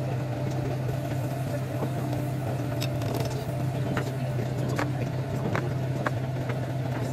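Light clinks of small ceramic sauce dishes and a metal ladle as sauce is ladled out and the dishes are set down, a handful of separate clicks over a steady low hum.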